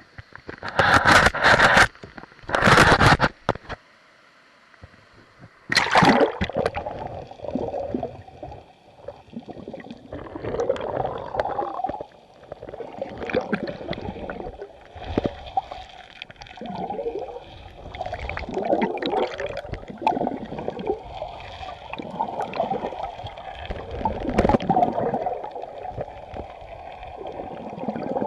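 River current heard underwater, gurgling and bubbling against a submerged camera. There are two loud rushes in the first three seconds, then a short lull, and from about six seconds in a continuous gurgling flow that keeps surging.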